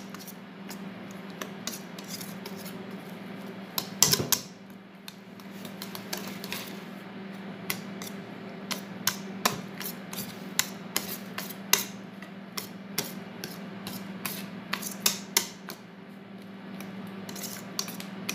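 Wire whisk beating cake batter in a mixing bowl: irregular clicks and scrapes of the whisk against the side of the bowl, over a steady low hum.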